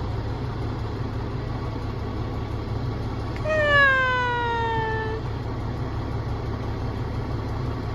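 Fire truck engine running steadily as a low hum. About three and a half seconds in, one long cry slides down in pitch and lasts nearly two seconds.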